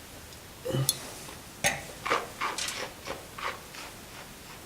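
A sip of red wine drawn in and slurped through the lips with air to aerate it across the palate, as a series of short hissing sucks.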